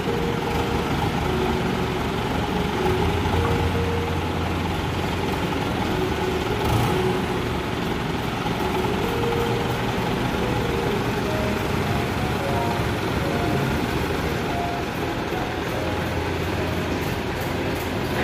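Forklift engine running as the truck drives across a concrete floor carrying a load of aluminium ingots on its forks. The low engine sound swells a few seconds in and again near the end.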